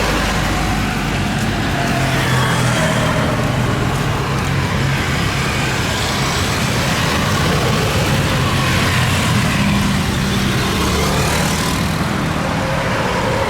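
Loud, steady engine rumble with low droning tones and no clear start or stop.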